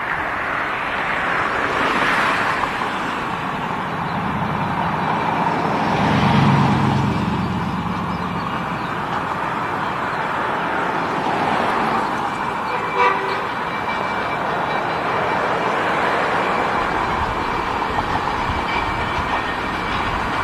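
Narrow-gauge Baldwin steam locomotive approaching with its train, its whistle sounding over the steady noise of the moving train, with a short sharp toot about two-thirds of the way through.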